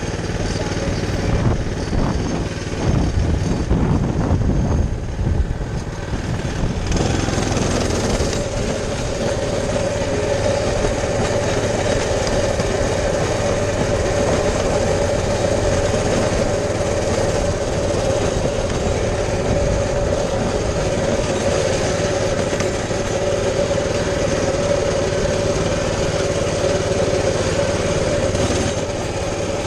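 Baja 200cc minibike's small single-cylinder four-stroke engine running as the bike is ridden. For the first several seconds it runs unevenly with low rumbles. About seven seconds in it settles into a steady drone at constant high revs.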